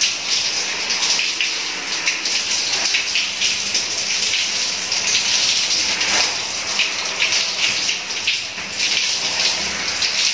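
Bathroom shower running, its spray falling steadily on a thin plastic raincoat and hood and splashing onto the floor: an even hiss of water.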